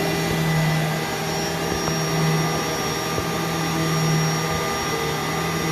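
Vacuum cleaner running on carpet: a steady motor hum with a faint high whine above it, swelling a little now and then.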